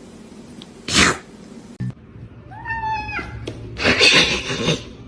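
A domestic cat meows once, a short call about two and a half seconds in. It is set among breathy, noisy bursts: a short one about a second in and a louder one lasting about a second near the end.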